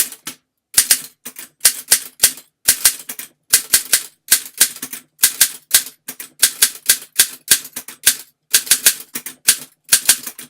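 Typing on a 1938 Torpedo 6 standard typewriter: the type bars are flung up and strike the platen with sharp, rather loud clacks. They come unevenly, about three a second, with short pauses between runs of strokes.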